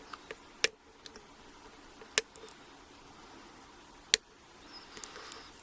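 Metal clicks of a lock pick working the pin stack inside an American 1100 padlock during single-pin picking. There are three sharp clicks, spaced about a second and a half to two seconds apart, with fainter ticks between them.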